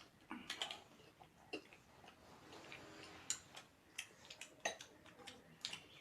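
Faint close-up eating sounds: chewing and mouth noises with irregular sharp clicks, a few louder ones in the middle.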